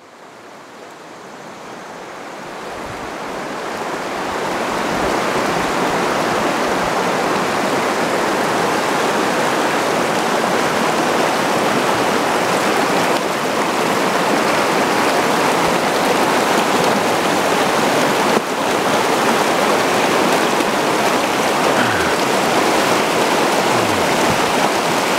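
Rushing water of a river rapid, a steady hiss that swells over the first few seconds and then holds.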